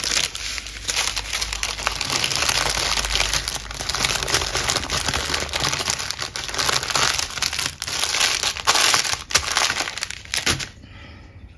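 Clear plastic packaging crinkling and rustling as it is handled and pushed about, dying away about a second before the end.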